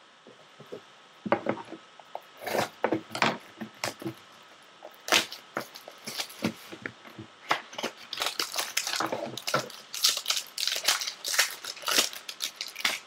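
Foil trading-card pack wrapper being torn open and crinkled by hand: sharp, irregular crackles, scattered at first and coming thick and fast over the last five seconds.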